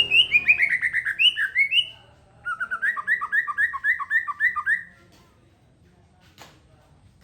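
A songbird singing two rapid phrases of repeated downward-sweeping whistled notes, about eight a second, the second phrase pitched lower than the first; the song stops about five seconds in.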